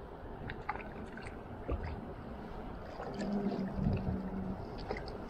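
Shallow river water running and lapping around a wading angler's legs, with a few small clicks. A brief, steady low hum comes about three seconds in.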